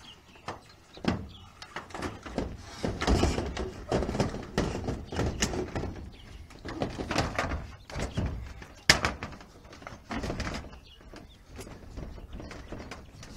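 Irregular knocks, thuds and scrapes of aluminium-framed solar panels and tools being handled and shifted on a corrugated metal roof.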